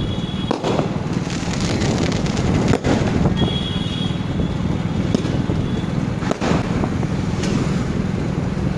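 Hero Honda Splendor Plus motorcycle's small single-cylinder four-stroke engine running as it is ridden, with wind on the microphone. A few sharp firecracker bangs cut through it, the loudest about three seconds in.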